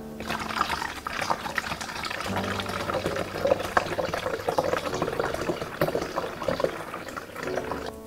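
Water pouring from a plastic bottle into the water reservoir of a drip coffee maker, a steady rush of liquid that tails off near the end.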